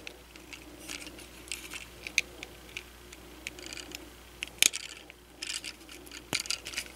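Small plastic upgrade pieces being handled and pressed into a plastic Transformers action figure: scattered light clicks and rattles, with one sharper click a little over halfway through and a quick run of clicks just after it.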